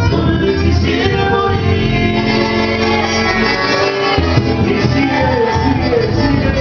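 A live trio of accordion, electric guitar and acoustic guitar playing a song, with a man singing into a microphone.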